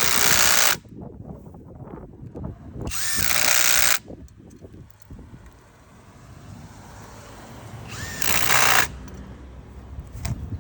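Skil brushless impact driver hammering on exhaust manifold bolts in three bursts: one cutting off just under a second in, one of about a second around the three-second mark, and a shorter one past the eight-second mark. Quieter clinking of handling in between.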